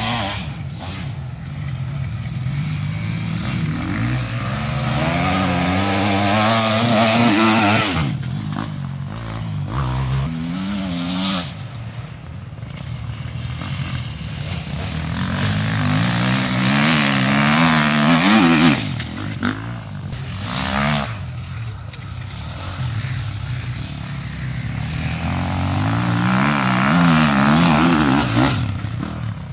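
Enduro motorcycles ridden hard across a grass special test, engines revving up and down with the throttle and gear changes. Three bikes come by about ten seconds apart, each growing louder as it nears and fading after it passes.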